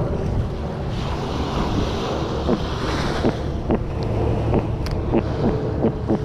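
Wind buffeting the microphone over surf washing the beach. From about two and a half seconds in, a run of short, falling croaks, about three a second, from a hooked sea robin croaking in hand.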